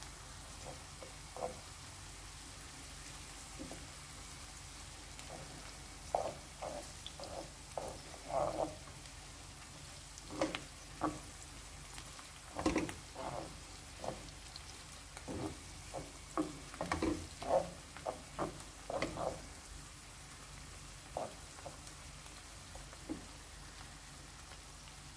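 A wooden spatula stirring and scraping tomato and pepper paste through sautéing onions and green peppers in a coated frying pan, in irregular runs of short scrapes and knocks that start about a quarter of the way in and thin out near the end. Under the strokes runs a low, steady sizzle of frying.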